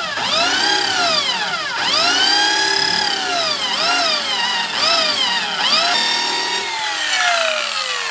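Electric drill spinning a rubber decal eraser wheel against a truck door to strip sun-baked vinyl decals, its motor whine rising and falling in pitch again and again as the speed changes. Near the end the motor winds down with a long falling whine.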